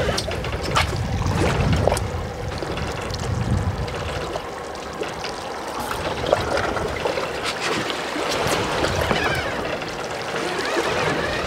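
Water lapping and trickling against the hull of a small drifting boat, with low wind rumble and a few light knocks.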